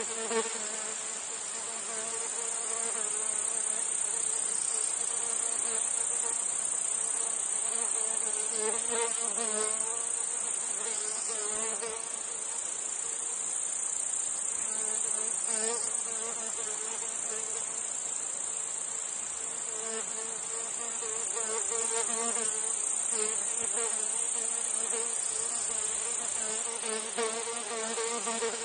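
Meadow insect chorus: cicadas hold a steady, high-pitched trill throughout. Flies buzz over it, their hum swelling and fading as they pass close every few seconds.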